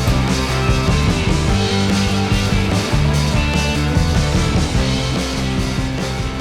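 Background music: rock with guitar and a steady beat.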